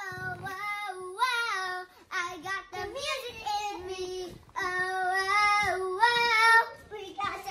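A young girl singing a song in phrases of held, gliding notes, with short breaths between them.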